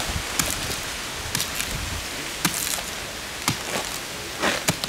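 A coconut palm trunk being split and broken open: a series of sharp cracks and knocks, about one a second, over a steady hiss.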